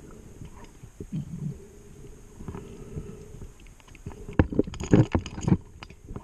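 Underwater sound of a scuba diver breathing through a regulator. A quieter stretch is followed, about four seconds in, by a loud bubbling burst of exhaled air lasting just over a second.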